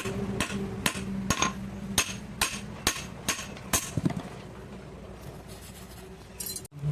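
Hand hammer striking metal, about eight sharp ringing blows at roughly two a second, stopping about four seconds in.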